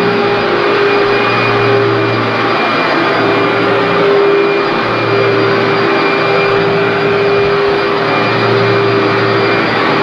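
Commercial upright vacuum cleaner running on carpet: a steady motor whine over the rush of air and the brush roll. Its low note swells and eases every few seconds as it works the carpet pile, pre-vacuuming dry soil before cleaning.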